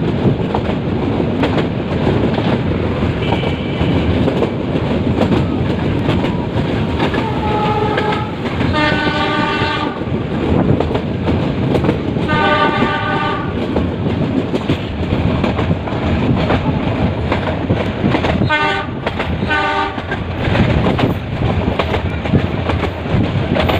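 Metre-gauge passenger train running with steady rail noise, its locomotive horn sounding ahead. There is a long blast about eight seconds in, another about twelve seconds in, and two short blasts near twenty seconds.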